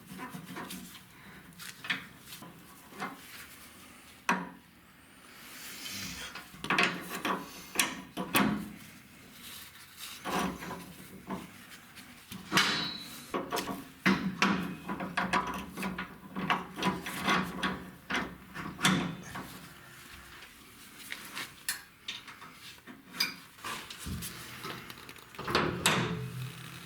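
Irregular knocks, clicks and scraping of tools and parts being handled, some strokes sharp and others drawn out.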